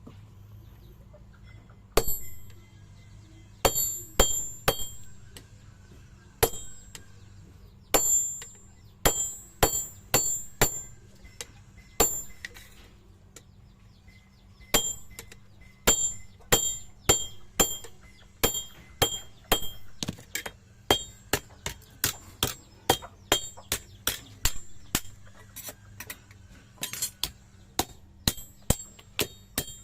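Blacksmith's hammer striking steel while a kitchen knife handle is being shaped: dozens of sharp ringing metal blows at an uneven pace in short runs, with pauses near the start and about halfway through. A steady low hum sits underneath.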